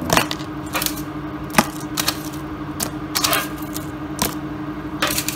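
Crispy fried mushroom chips crackling and clattering as they are dropped by hand into a plastic container: a string of irregular light clicks and crunches, over a steady low hum.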